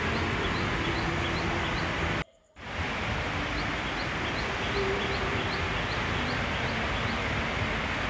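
Steady, even rain with faint high chirps repeating about two or three times a second. The sound cuts out briefly a little over two seconds in, then comes back.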